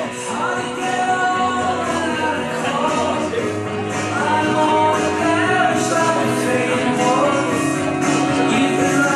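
A song with a singer and band backing, played loud and steady.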